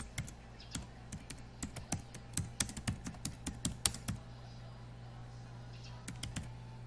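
Typing on a computer keyboard: a quick run of key clicks for about four seconds, a pause, then a few more keystrokes near the end, over a steady low hum.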